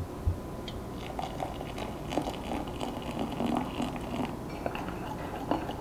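Hot water poured from a stainless steel kettle into a glass mug, a faint steady trickle and splash. Two soft knocks right at the start.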